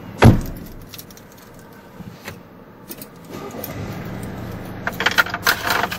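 Mercedes-Benz C-Class car sounds: a loud thump just after the start, like a car door shutting, then a few light clicks. About three and a half seconds in, a low steady engine hum sets in, and keys jangle near the end.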